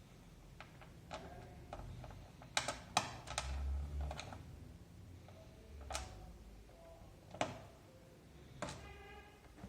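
Scattered clicks and taps of computer keyboard parts being handled and pressed, with a few sharper knocks; one knock near the end rings briefly.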